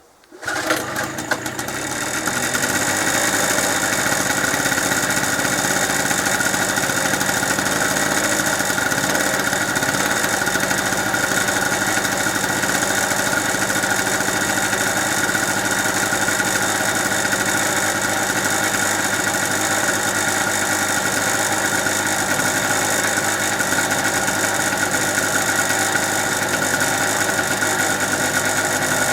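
Small air-cooled two-stroke engine of a cheap Chinese GMC generator, a Yamaha clone, stuttering and catching in the first second or two, then running steadily on choke. It is burning two-stroke petrol mix that is years old.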